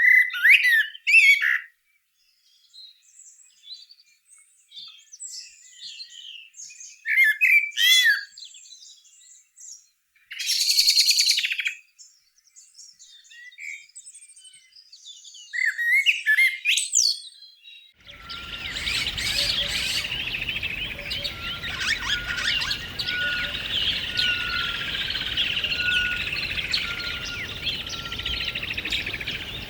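Birds calling: separate chirps and whistles with silent gaps between them, then from about 18 seconds in a dense chorus of many birds calling at once over a steady outdoor background.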